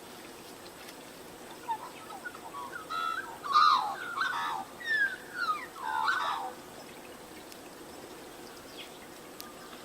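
A songbird singing a varied phrase of quick notes that glide up and down, lasting about five seconds and starting a couple of seconds in, over a faint steady background hiss.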